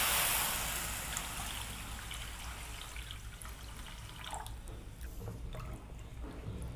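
Water poured into a hot pan of freshly roasted split moong dal. It hisses loudly at first, fades over the first second or so to a faint trickle, then a wooden spatula scrapes lightly near the end.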